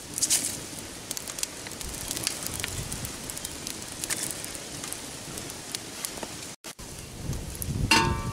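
Small twig fire crackling and popping in a cement cooking stove. Near the end a metal kettle clanks and rings as it is set down on the stove.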